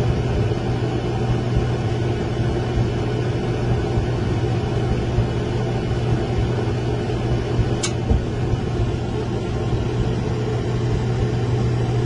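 American gas clothes dryer running with its front panels removed: a steady loud hum and rush from the drum motor and blower while the gas burner comes on. One sharp click about eight seconds in.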